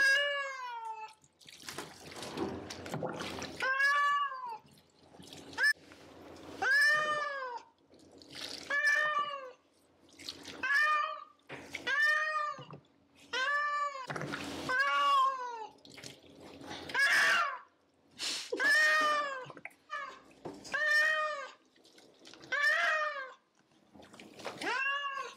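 Persian cat yowling over and over in protest at being bathed: long meows that rise and fall, about one every two seconds. Bath water splashes twice in between.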